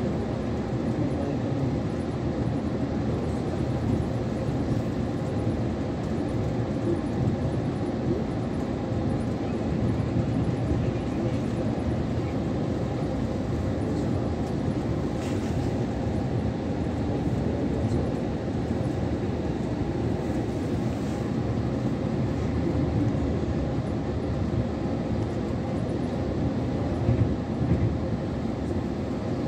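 Passenger train running along the track, heard from inside the carriage: a steady rumble of the wheels and carriage, with a couple of brief louder bumps near the end.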